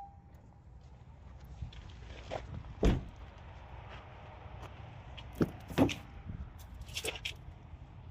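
Several dull knocks and thumps over a low steady background: the loudest about three seconds in, two more close together a little past the middle, and a few lighter clicks near the end.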